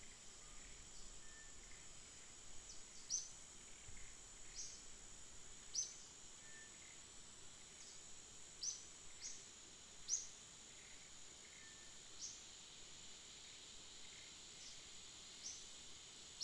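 Outdoor ambience: a steady, high-pitched insect drone, with short high chirps every second or two.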